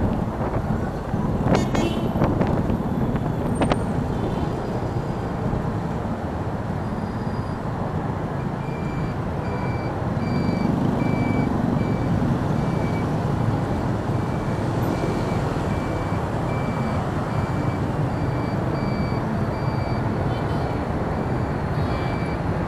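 Motorbike ride through busy city traffic: a steady rumble of engines and road noise, with a few sharp clicks in the first few seconds. From about nine seconds in, an electronic beep repeats at a little over one beep a second.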